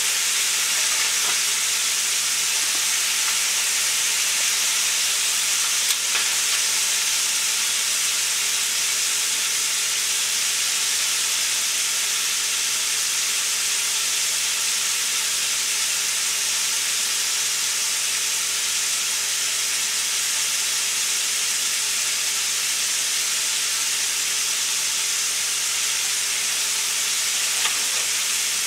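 Chicken wings deep-frying in hot oil in a cast-iron Dutch oven: a steady sizzle throughout, with a couple of light clicks of a slotted metal spatula against the pot, about six seconds in and near the end.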